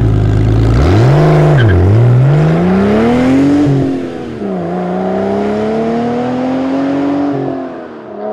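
Car engine revving: a low steady note, then the revs climb and drop several times, each climb longer and slower than the last, fading near the end.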